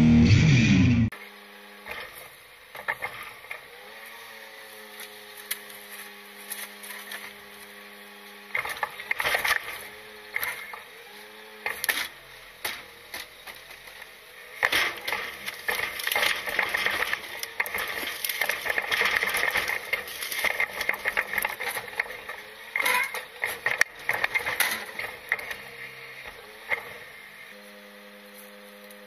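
Rock music cuts off about a second in. Then a side-loader garbage truck's hydraulic grabber arm works a wheeled trash cart, with clanks and rattles over the steady hum of the truck's engine and hydraulics. The clatter is busiest and loudest in the last third, then settles back to the steady hum near the end.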